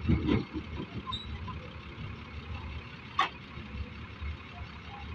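Doosan DX140W wheeled excavator's diesel engine running under load with a steady low rumble while it loads wet sand. A heavy thud in the first half second as a bucketful of sand drops into the dump truck's bed, and a single sharp click about three seconds in.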